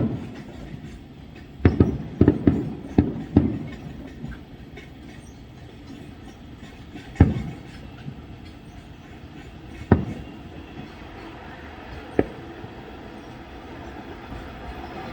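Aerial fireworks shells bursting: a quick cluster of booms in the first few seconds, then single booms about seven, ten and twelve seconds in, each trailing off in a rumble.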